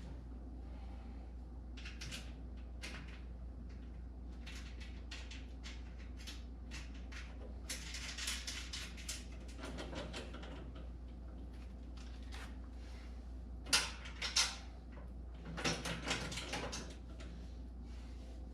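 Small metal hardware, bolts and washers, clicking and clinking as it is handled and fitted to mount casters on a cart, with two sharper knocks a little past the middle, over a steady low hum.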